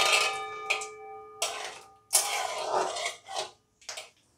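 A metal spatula strikes a kadai, leaving a ringing tone that fades over about a second and a half, then scrapes and stirs mustard seeds sizzling in hot oil, with two shorter scrapes near the end.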